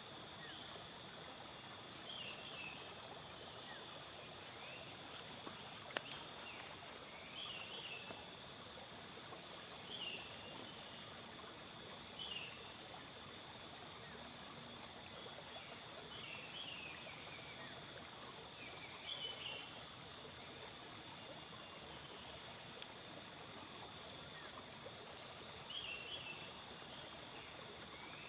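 Insects trilling: a steady, high-pitched continuous drone, with a short pulsed chirp train every few seconds. Brief chirping calls, which may be birds, recur every couple of seconds.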